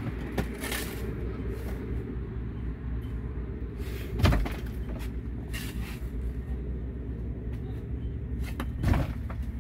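Shovelfuls of soil thrown into an open grave, landing on the casket with a dull thud about four seconds in and again near the end, with fainter knocks between. A steady low rumble runs underneath.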